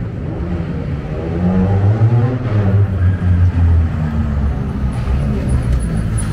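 Renault Clio rally car's engine running at low revs as the car rolls closer, getting louder about a second and a half in, with the revs rising and falling a few times.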